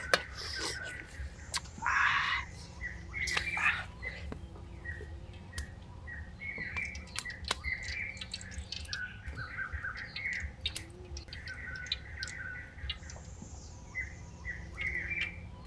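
Birds calling in short repeated chirps and squawks, over scattered sharp clicks and knocks, with a brief noisy burst about two seconds in.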